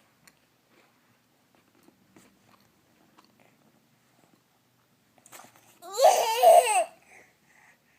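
A baby eating, with faint mouth smacks and chewing clicks, then about six seconds in a loud, high babbling squeal lasting about a second.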